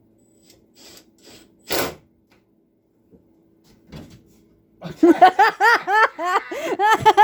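A person laughing in a quick run of high-pitched 'ha-ha' pulses, about five a second, starting about five seconds in. A single sharp knock comes earlier.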